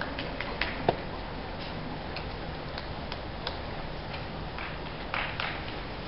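Quiet ambience of a tennis court between points, with a couple of sharp clicks in the first second, a series of faint light ticks at an even pace, and a brief rustle near the end.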